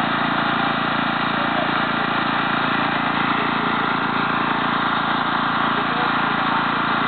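Riding lawn mower's engine idling steadily.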